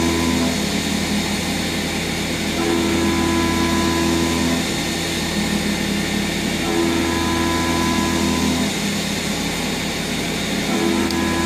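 Milling machine cutting with an end mill under flood coolant: steady spindle and cutting noise with coolant spray, and a ringing set of pitched notes that comes and goes about every four seconds as the cutter engages and leaves the cut.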